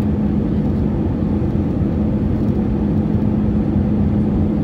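Steady cabin noise of an easyJet jet airliner on final approach, heard from inside the cabin: a low, even rush of engine and airflow with a steady hum.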